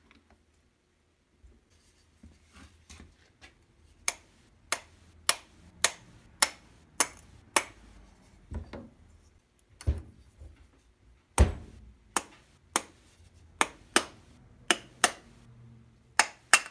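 Sharp little metal clicks from a screwdriver working the float-bowl screws of a Kawasaki 440 snowmobile carburetor. They start about four seconds in, come roughly one every half second for a while, then turn irregular as the bowl is worked loose.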